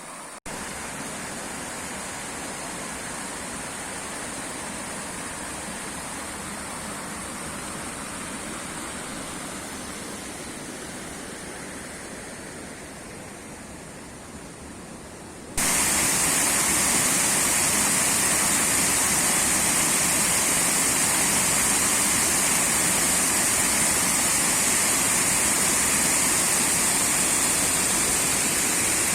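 Water rushing down a river's falls as a steady noise. About halfway through it cuts suddenly to a louder, closer rush.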